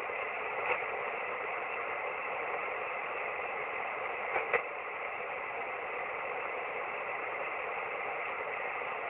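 Single-sideband shortwave receiver hiss and static on the 17-metre amateur band, with a few faint steady tones in the noise. A couple of brief clicks come about four and a half seconds in.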